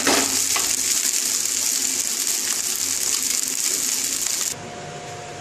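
Fried pasta sizzling steadily in a hot kadai just off the gas flame, with a few light scrapes of a wooden spatula in the first second. The sizzle cuts off suddenly about four and a half seconds in, leaving a quieter steady hum.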